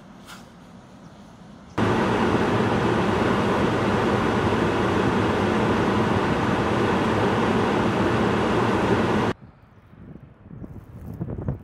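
A steady loud rushing rumble that starts and stops abruptly. After it, a snow plow truck approaches, its blade scraping and throwing snow, building in level toward the end.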